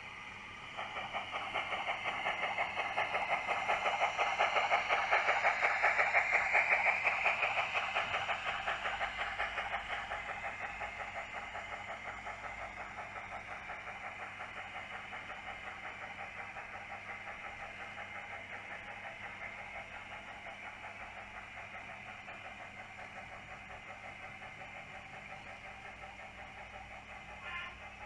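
Bachmann 00 gauge Austerity 2-8-0 model locomotive's DCC sound decoder playing rhythmic steam chuffing as the loco runs with its wagons. It grows louder, is loudest about six seconds in, then slowly fades as it moves away. A brief click comes near the end.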